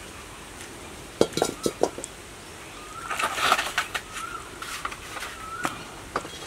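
Stainless steel bowl clanking against rough stones as it is set on a stone-ringed cooking fire: a few sharp knocks about a second in, then a louder clatter around three seconds in. A small bird chirps repeatedly in the background.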